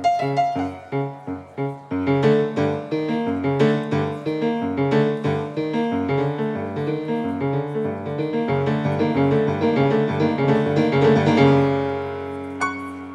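Grand piano playing a fast passage of quickly repeated notes that builds up and ends on a held final chord, which rings and dies away. A brief click near the end.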